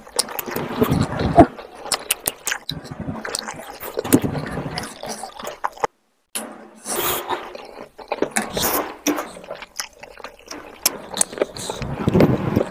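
Close-miked eating of chicken curry and rice by hand: chewing, and fingers mixing rice into the curry gravy on the plate, as a string of irregular clicks and smacks. The sound drops out completely for a moment about six seconds in.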